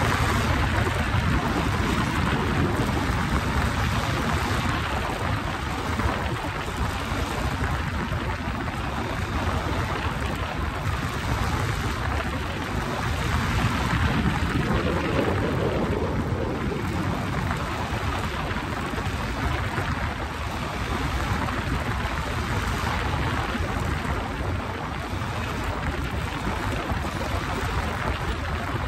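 Wind rushing over the handlebar-mounted microphone of a moving motorcycle, with the bike's engine and tyre noise underneath as it rides over grass: a steady rushing noise that swells a little about halfway through.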